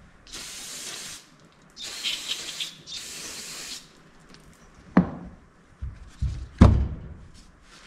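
Aerosol cleaner can sprayed in three bursts of about a second each, flushing out the freshly tapped fitting hole in a Powerglide transmission valve body. Then two knocks as the parts are set back down on the bench, the second louder.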